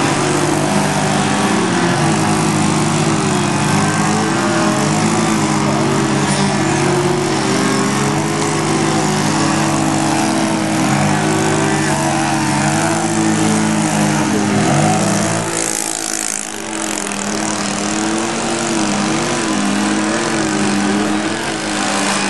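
The engines of several radio-controlled 3D aerobatic model airplanes buzzing while the planes hover on their propellers. Their pitches waver up and down as the throttles are worked. About two-thirds of the way through there is a brief rush of noise.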